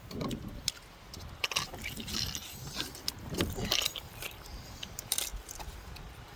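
Scattered small clicks and rattles of fishing tackle being handled, with a couple of brief lower rasping sounds, as a just-landed catfish is dealt with.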